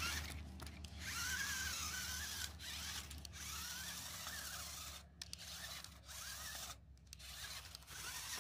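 Small electric drive motor and gears of a toy RC rock-crawler truck whining, the pitch wavering up and down with the throttle and stopping briefly several times.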